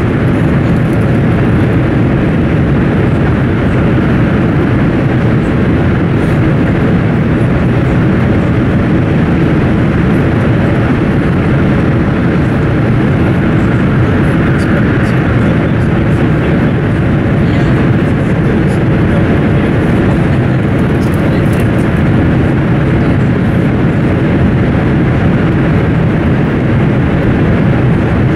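Cabin noise of a Class 395 'Javelin' high-speed electric train running at speed, heard from inside the carriage: a loud, steady rumble of wheels, track and air, with a few faint light ticks and rattles.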